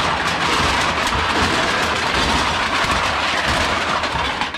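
A heap of empty aluminium beer cans clattering and rattling continuously as a hand shoves them aside; the clatter stops abruptly at the end.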